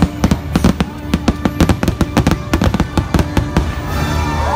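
Fireworks going off in a rapid string of sharp bangs, several a second, that stops near the end, with show music playing underneath.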